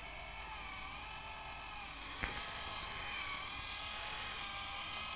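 Small electric motor of a friction-test rig whining steadily as it drives the plate along its rails beneath a wooden block, its pitch wavering slightly. A single click sounds about two seconds in.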